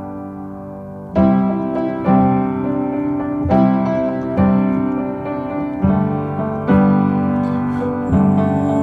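Piano chords struck one after another about once a second, an instrumental passage of a slow song with no singing.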